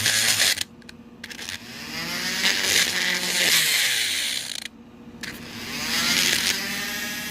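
Rotary tool with a burr grinding into a padlock's lock core, cutting out the pins. It runs in three stretches with two brief lulls, its pitch sweeping up and down as the motor speeds up and bogs under load.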